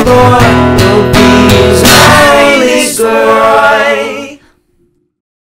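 Soundtrack song with guitar and a singing voice, which ends in a quick fade about four seconds in.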